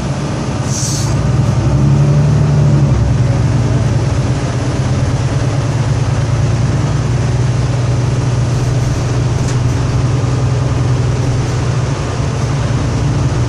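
Mercedes-Benz Conecto II city bus engine heard from inside the cabin, rising in pitch as the bus accelerates and then running steadily. There is a short hiss about a second in.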